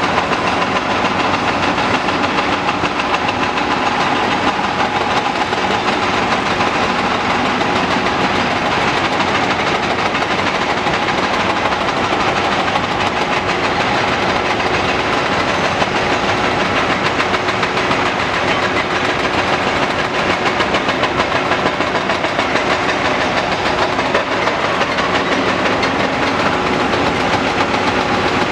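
Cat 330DL hydraulic excavator's diesel engine and hydraulics running steadily: a loud, even, dense noise with a faint steady hum and no separate knocks.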